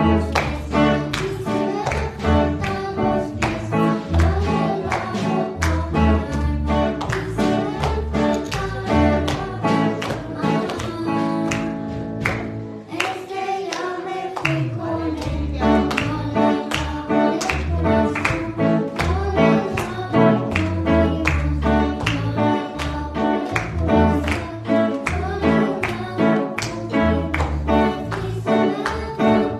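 A girl singing a hymn into a handheld microphone over a live church band of guitar and bass with a steady strummed beat. About halfway through, the beat drops out for a couple of seconds while a low note slides down, then the rhythm comes back.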